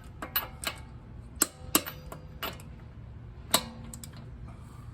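Click-type torque wrench clicking on wheel lug nuts as they reach set torque during a torque check: several sharp, irregularly spaced clicks, the loudest about a second and a half in, just under two seconds in, and about three and a half seconds in.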